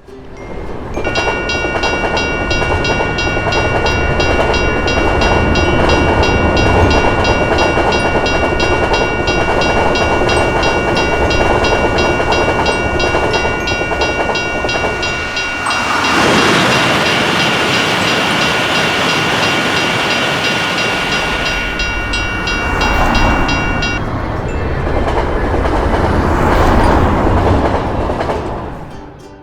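Train rumbling past a railroad crossing while the crossing bell rings in a steady, even rhythm; the bell stops about 24 seconds in and the train noise carries on, swelling louder around the middle.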